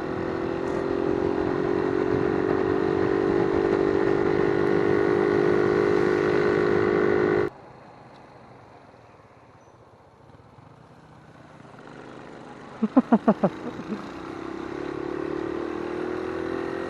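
Motorcycle engine running steadily while riding, cutting off suddenly about halfway through. Later comes a quick string of about six short, sharp bursts, and then the engine is heard again, quieter.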